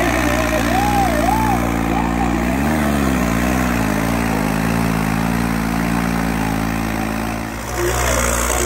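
A heavy tractor engine runs steadily, its pitch wavering briefly about three seconds in. Rising-and-falling whistle-like calls sound over it in the first second or so.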